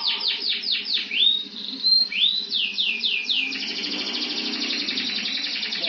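Canary singing: a fast trill of repeated down-slurred notes, then a few longer rising and level whistled notes about a second in, then slower down-slurs and a dense, rapid roll through the second half.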